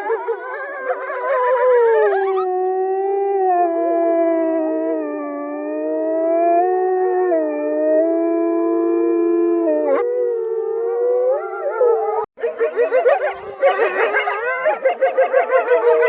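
Wolves howling in chorus: several long overlapping howls, one held fairly steady with a slow pitch waver from about two to ten seconds in. After a brief dropout near the twelve-second mark, a dense warbling chorus of many voices follows.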